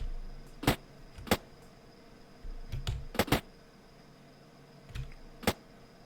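Computer mouse being clicked: five sharp clicks, one of them a quick double click, with soft low thuds of the mouse being handled on the desk in between.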